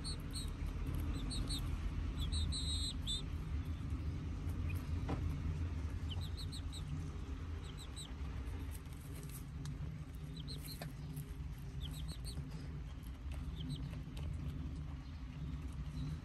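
Young chicks peeping in short runs of two to four high chirps, a few seconds apart, over a steady low rumble.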